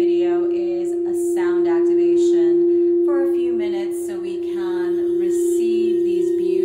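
Frosted quartz crystal singing bowl sounding one steady tone, rubbed around the rim with a wand. A woman's voice chants over it in short held notes.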